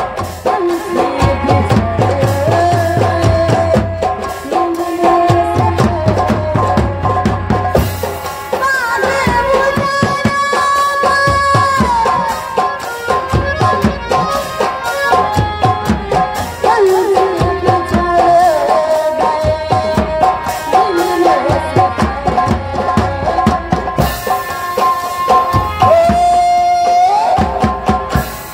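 Loud live ghazal music in the nautanki stage style: hand drums keep a quick, steady beat under a melody of long held notes that bend in pitch.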